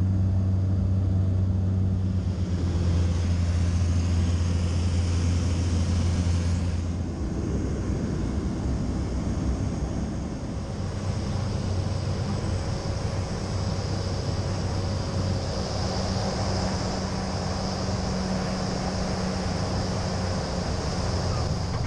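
Cessna Grand Caravan's PT6A turboprop engine and propeller droning steadily in the cabin, a deep hum with a thin high whine above it. About seven seconds in the deep hum gives way to a rougher, noisier rumble that runs on steadily.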